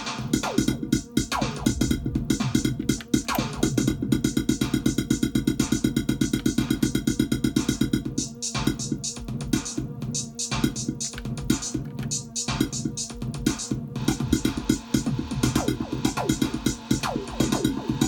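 Drum machine playing a fast electronic beat of rapid, evenly repeated hits over low synthesizer tones, with brief breaks in the pattern a little over eight and ten seconds in.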